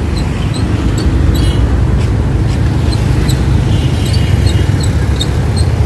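Hand-pushed ba gác cargo cart rolling along a road, a short high squeak repeating roughly twice a second as it goes, over a steady low rumble of road traffic.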